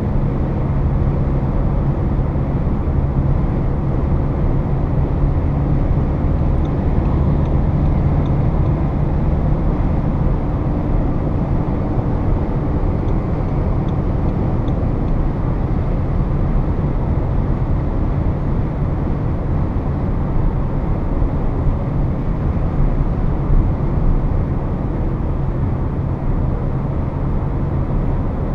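Steady in-cabin noise of a Volkswagen Passat B8 with a 150 hp 2.0 TDI four-cylinder diesel cruising at highway speed: a low, even engine drone under steady tyre and wind noise.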